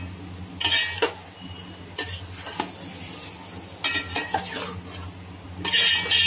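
Metal ladle stirring chana dal and boiled potatoes in a hammered aluminium pot, with several short bursts of scraping and clinking against the pot. The dal is being fried in its masala before water goes in.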